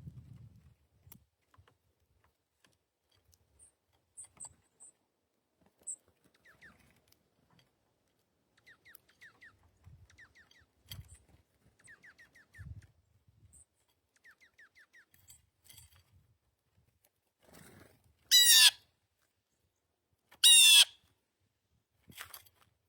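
Birds at a feeder: small birds give soft high chips and several quick runs of short notes, with a few faint low thumps, then two loud harsh calls of about half a second each, two seconds apart near the end, typical of a blue jay.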